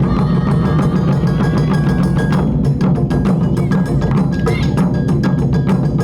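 Japanese taiko drum ensemble playing a fast, dense rhythm, with high ringing tones over the drumming.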